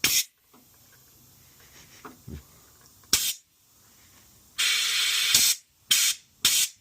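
Compressed-air blow gun hissing in five short bursts, the longest just under a second about halfway through, as air is blown back down a pickup's fuel line toward the tank to clear a suspected blockage starving the carburettor of petrol.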